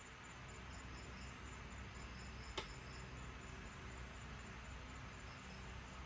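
Faint steady hiss and low hum from an idling hi-fi system, with a faint high chirping repeating several times a second and a single light click about two and a half seconds in.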